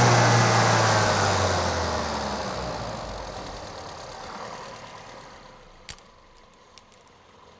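VW Golf's turbocharged 1.2-litre four-cylinder petrol engine after a blip of the throttle, its revs sinking slowly back toward idle over several seconds as the sound dies away. The mechanic hears the wastegate rattling but nothing wrong from the turbocharger itself, and takes the slow return of the revs for something that should not be. A single click near the end.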